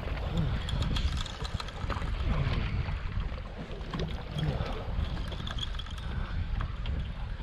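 Wind buffeting the microphone over water sloshing against a small fishing boat, a steady low rumble with scattered faint clicks.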